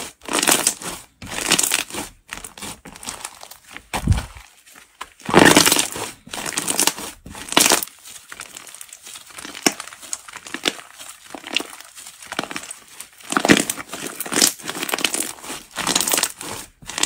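White fluffy slime being stretched, folded and squeezed by hand, giving irregular bursts of crinkly crackling and small pops as its air pockets are pressed out. A single low thump about four seconds in.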